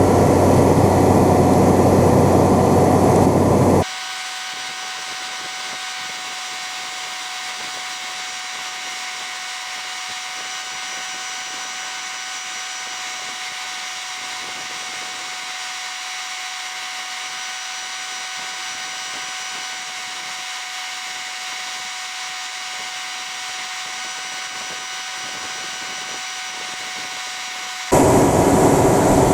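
A steady machine hum of an engine running, with a strong low drone. About four seconds in it drops abruptly to a quieter, steady whine of several fixed tones, and near the end it jumps back just as abruptly to the louder hum.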